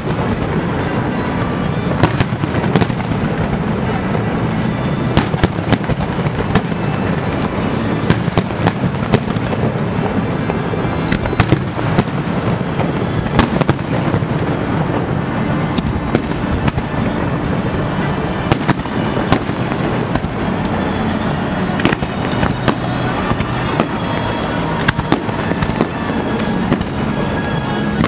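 Fireworks display: aerial shells bursting in a dense, irregular string of sharp bangs and crackles, several a second at times, with music playing underneath.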